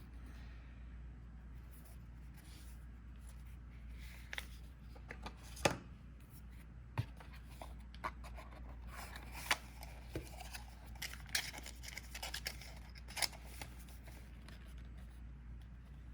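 Collectible trading cards being handled and sorted by hand: scattered light taps, clicks and slides of cards against each other and the table.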